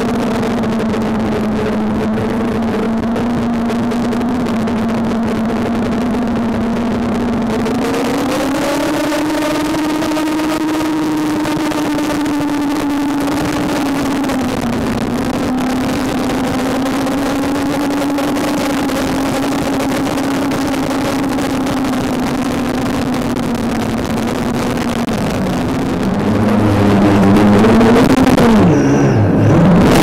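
Small FPV quadcopter's electric motors and propellers whining steadily, heard from the camera mounted on the drone. The pitch rises a step about a quarter of the way in and holds. Near the end it grows louder, with quick dips and swoops in pitch as the throttle changes.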